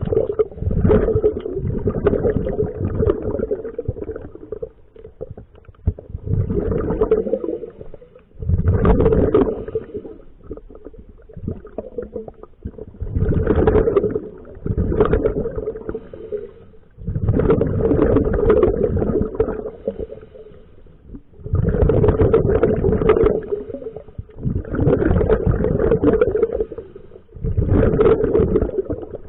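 Scuba diver breathing underwater through a regulator: bursts of exhaled bubbles gurgling out roughly every three to four seconds, with quieter gaps between breaths.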